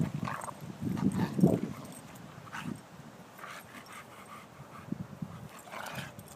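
A Neapolitan Mastiff and a bulldog play-wrestling: low growls and grunts, loudest in the first second and a half, with a few short higher-pitched yelps in between.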